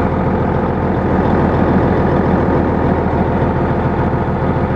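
Heavy diesel engine running steadily under load while a truck stuck in slick mud is pushed back toward the road by a bulldozer.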